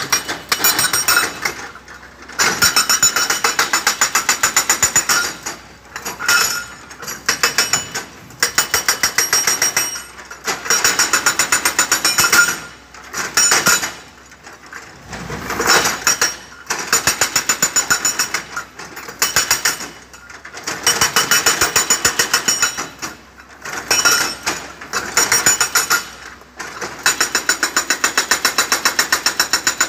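Hydraulic rock breaker on a Komatsu PC70 excavator hammering hard rock boulders: rapid blows in bursts of one to three seconds, broken by short pauses as the chisel is lifted and reset.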